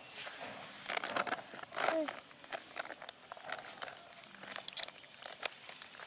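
Rustling and crinkling as baby monkeys move about on a lap against clothing and a paper diaper, with scattered clicks and a brief voice-like sound about two seconds in.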